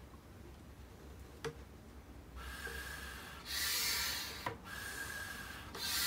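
Homemade PVC-pipe hand vacuum pump being worked: from about two and a half seconds in, its piston is drawn in rasping, hissing strokes about a second long, with a click between strokes. With a hose fitted to the inlet, its check valve no longer squeals.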